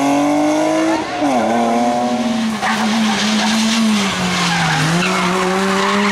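Rally car engines at full throttle: a BMW saloon rally car pulls away with its engine pitch climbing, then dropping at an upshift about a second in. Then a Ford Fiesta rally car takes a bend with its tyres squealing and scrubbing, its engine dipping and then picking up again.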